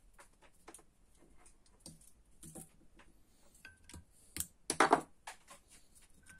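Light scattered clicks and taps, then a short, loud clatter about four and a half seconds in, as a hand takes hold of a copper transformer coil sitting on the laminated steel core.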